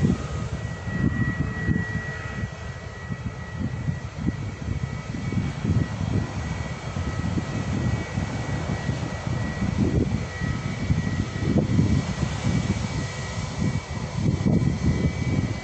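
Bangkok Airways twin-engine jet airliner taxiing at low power: its engines give a steady high-pitched whine over an uneven low rumble.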